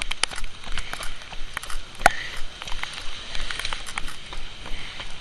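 Running footsteps in pouring rain: an irregular run of clicks and knocks over a steady hiss of rain, with one sharper knock about two seconds in. It is picked up on a jostling handheld camera carried by the runner.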